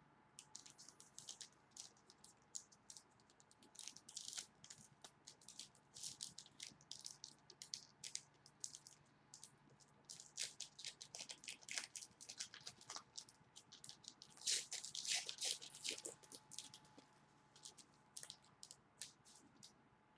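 Many scattered light clicks and crinkles of small handling noises, irregular, with a denser, louder cluster about two-thirds of the way through, over a faint steady hum.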